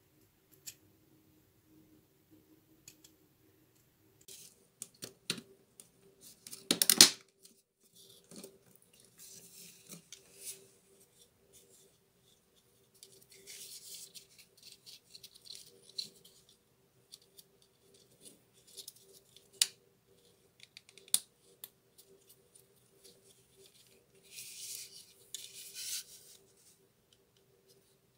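Small clicks, rubs and scrapes of hands handling the plastic housing, wires and spade connectors of a Bosch GWS 7-125 angle grinder's switch and brush holder. The loudest is a short rasping scrape about seven seconds in, with more rustling scrapes in stretches later on.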